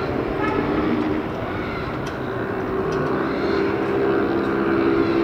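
Airbus A350-900's Rolls-Royce Trent XWB turbofans at climb power as the airliner climbs away after takeoff: a steady jet rumble with a wavering low drone.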